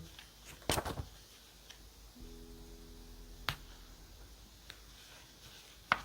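Light clicks and taps of journaling stationery being handled on a desk: a quick cluster about a second in, a single click in the middle and the loudest click near the end. A faint held chord of background music sounds in between.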